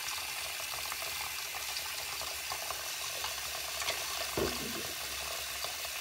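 Bathroom sink faucet running a steady stream of water into a stoppered basin, with a brief low sound about four and a half seconds in.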